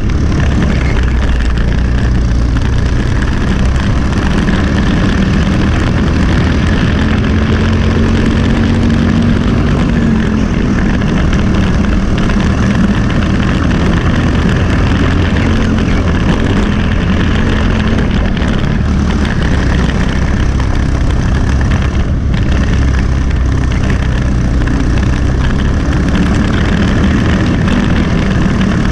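Briggs & Stratton LO206 single-cylinder four-stroke kart engine running flat out under racing load, heard onboard, its note rising and falling a little through the corners.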